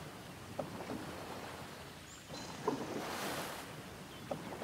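A wooden paddle stroking through river water: a soft swishing surge swells up about halfway through, with a few small clicks and faint bird chirps.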